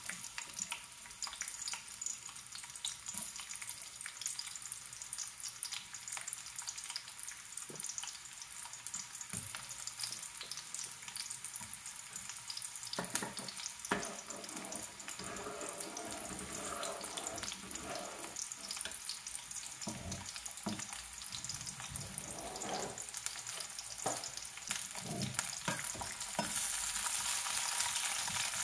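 Sliced onion rings sizzling and crackling in hot oil in a frying pan, just put in to fry to golden brown. The sizzle grows louder near the end, as a spatula starts stirring them.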